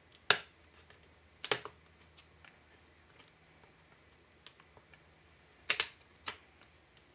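Sharp clicks and light taps of a plastic spudger and small laptop parts being worked loose inside a MacBook Air. There are four louder clicks, one about a third of a second in, one at about a second and a half, and two near the end, with faint ticks between.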